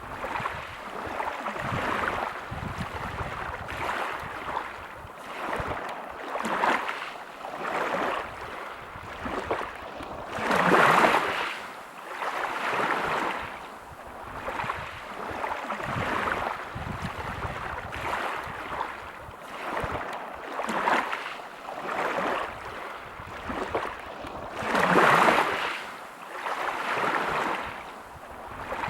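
Waves breaking on a pebble beach, the wash swelling and fading every couple of seconds, with two bigger waves about 11 s and 25 s in.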